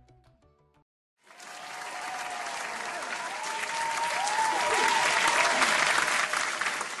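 Background music tails off, then after a short gap an audience's applause starts and builds, with a few voices calling out over the clapping.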